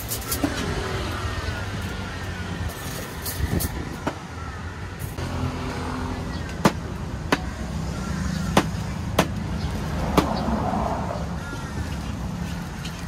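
Steady street traffic rumble with faint voices. About halfway through, a cleaver strikes a round wooden chopping block while raw meat is being chopped, giving about five sharp knocks at irregular intervals.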